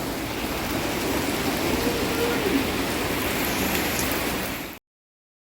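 Steady hiss of heavy rain falling on flooded pavement and water during a hurricane downpour. It cuts off suddenly near the end.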